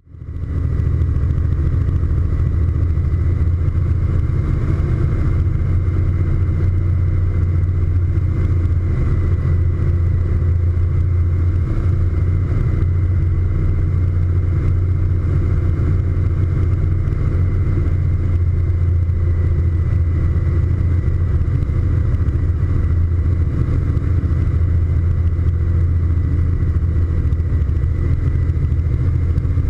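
Cessna T206's turbocharged six-cylinder piston engine and propeller running in flight: a loud, steady low drone with a thin high whine above it, fading in at the very start.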